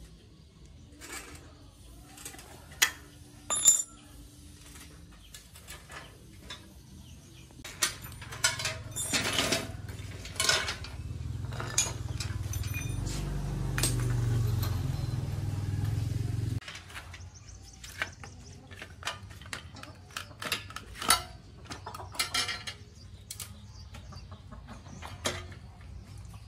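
Metal spanners and bicycle parts clinking and clanking on a concrete floor as an old bicycle is taken apart, in scattered knocks with two loud clanks about three and four seconds in. A low droning hum comes in about eight seconds in, holds, and cuts off suddenly past the middle.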